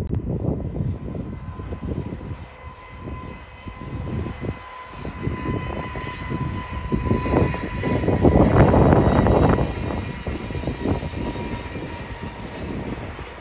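A container freight train hauled by an electric locomotive runs past: a steady rumble with the repeated clatter of wheels over the rails and a steady high tone underneath. It grows loudest about two-thirds of the way through.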